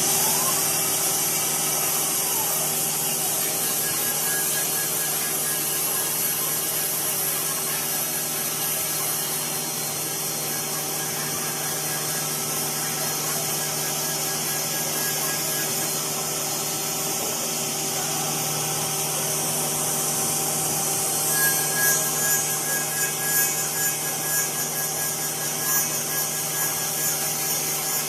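5-axis CNC wood router with an HSD spindle head running and cutting wood: a steady spindle whine over a high hiss. About three quarters of the way through, the cutting becomes louder and uneven, in short surges.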